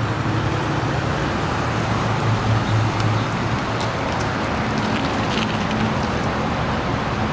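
An SUV driving slowly by: engine hum and tyre noise on asphalt, with steady traffic noise behind it.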